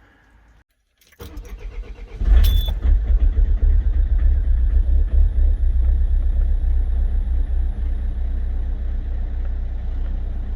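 Citroën 2.0 HDi common-rail diesel engine cranking briefly on the starter, then catching about two seconds in and running steadily at idle. It starts now that the rail pressure regulator has been replaced, which means the crank-no-start fault (code P1210) is cured.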